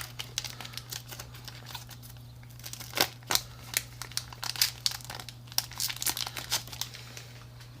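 Foil booster pack wrapper crinkling and being torn open and cards handled: irregular sharp crackles, thickest in the second half, over a low steady hum.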